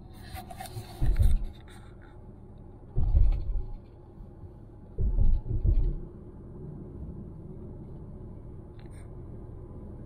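Car driving steadily over a road-work stretch: a constant low rumble, broken by three heavy low thumps about a second, three seconds and five seconds in, the last one doubled. A brief light clatter comes with the first thump.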